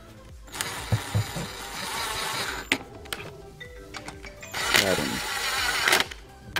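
Cordless power driver running in two bursts, the first about two seconds long and the second just over a second, tightening the throttle body bolts.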